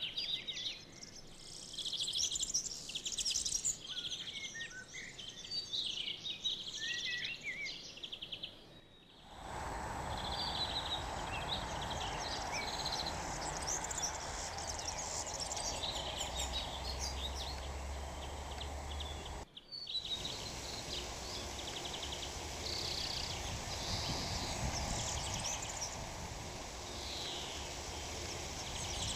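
Songbirds singing and chirping, many short calls and trills overlapping. Two abrupt cuts break the sound. After the first, about a third of the way in, a steady noise with a low rumble lies under the birdsong.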